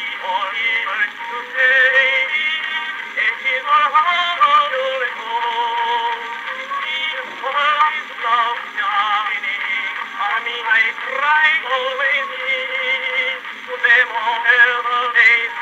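Edison cylinder phonograph of about 1915 playing a blue cylinder record through its small black trumpet horn. A singer with wavering vibrato and accompaniment comes out thin and tinny, with no bass and no treble.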